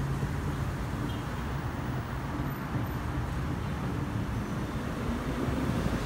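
Steady low background rumble with a faint hum.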